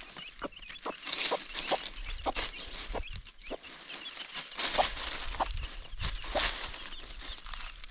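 A hen clucking in short notes about once a second while she scratches and digs in dry fallen leaves, which crackle and rustle in bursts.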